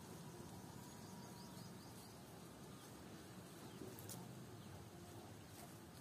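Near silence: faint outdoor ambience, with a few faint high chirps in the first half and one sharp click about four seconds in.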